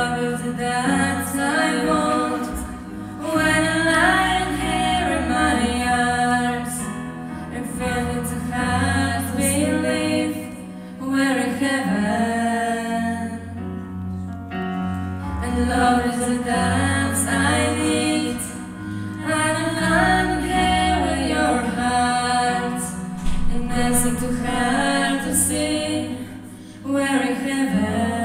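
A live song: a young solo singer sings into a microphone over chords from a Korg electronic keyboard, with short pauses between phrases.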